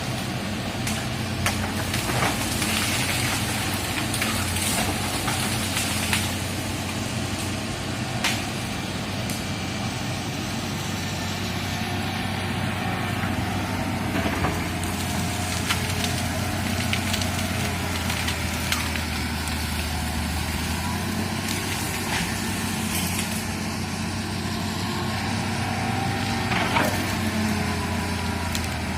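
Excavator's diesel engine running steadily with a low drone, and occasional sharp knocks through it.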